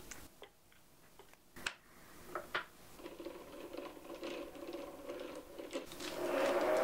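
Metal clicks and knocks of a wrench and chuck key being worked on a metal lathe, as a steel bar is clamped in the three-jaw chuck. A steady hum comes in about three seconds in and grows louder near the end.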